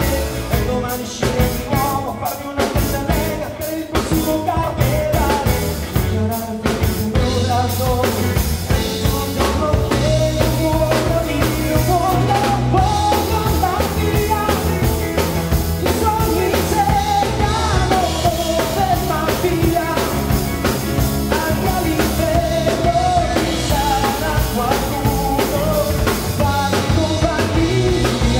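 A live rock band playing loudly: drum kit, electric guitars, bass and keyboard, with a lead vocal over them. The sound is thinner for the first few seconds, and the full band comes in steadily from about six seconds in.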